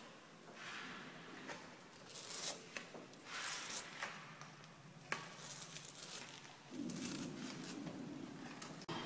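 Paintbrush strokes on a wall: a series of short, scratchy swishes of bristles dragging wet paint across the plaster, with a few light taps. About two thirds of the way in, a steady low rumble joins them.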